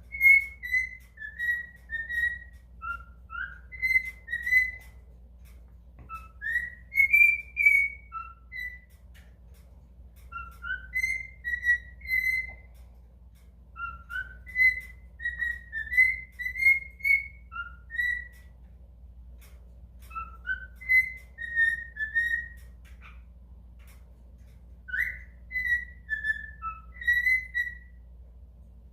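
Cockatiel whistling a made-up song: phrases of clear whistled notes, each usually opening with a couple of rising notes and running on into a string of level ones, with short pauses between phrases.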